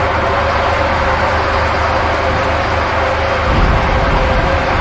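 Steady mechanical drone of demolition machinery, a hydraulic excavator working, with a deeper low rumble coming in about three and a half seconds in.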